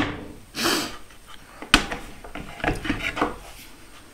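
Softwood boards being handled on a workbench: a few knocks of wood on wood and a short scrape of a board sliding just under a second in.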